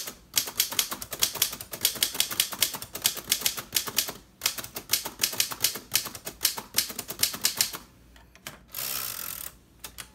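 1928 Underwood Portable three-bank typewriter being typed on at speed, its type bars striking the platen about five times a second in a steady run with one short break. Near the end come a couple of clicks and a short sliding rasp as the carriage is returned.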